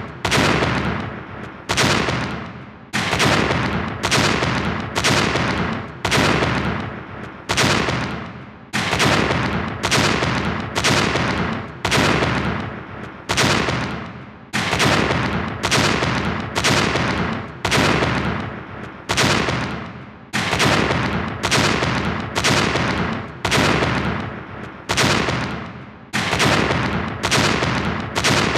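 A cartoonish explosion sound effect, a sharp blast that dies away in under a second, repeated back to back about once a second with no gap between them.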